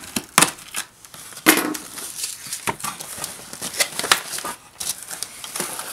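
A cardboard box packed with foam packing peanuts being cut and opened by hand: scissors at the tape and the flaps pulled back, an irregular run of crackles and snaps, the sharpest about half a second and a second and a half in.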